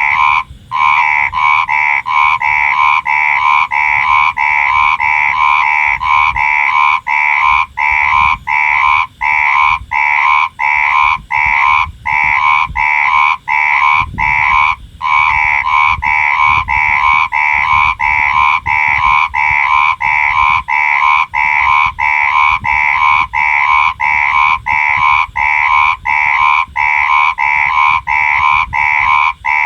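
Frog calling without pause in a run of short croaks, about two a second, each a buzzy note at two pitches with brief gaps between them.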